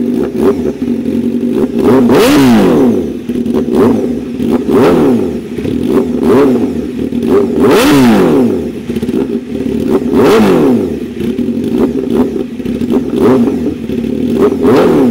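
Honda CBR1000RR-R Fireblade's inline-four engine, breathing through cat-delete headers and an SC Project CRT titanium-and-carbon slip-on exhaust, idling cold and blipped to higher revs about every two to three seconds, each rev rising and falling back quickly.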